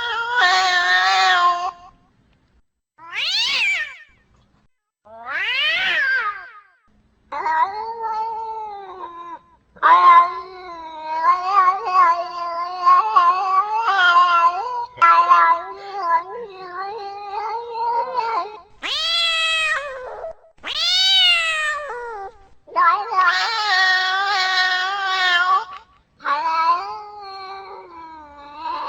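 Domestic cat meowing over and over: short calls that fall sharply in pitch alternate with long, drawn-out wavering yowls, with brief pauses between them.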